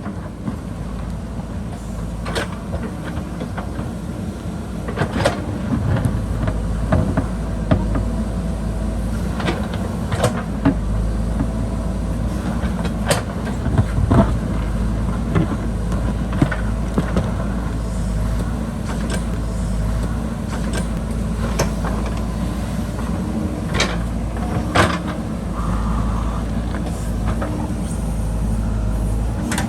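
JCB backhoe loader's diesel engine running steadily under load, with scattered sharp knocks and scrapes of the bucket against rock and soil.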